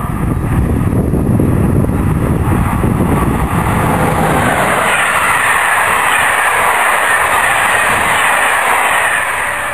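An electric-locomotive-hauled passenger train passing at speed: a loud low rumble for the first few seconds as the locomotive goes by, then a higher, steady rush of wheels on rail as the coaches roll past.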